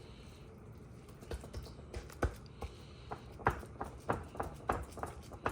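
A run of irregular light taps and knocks, several a second, starting about a second in.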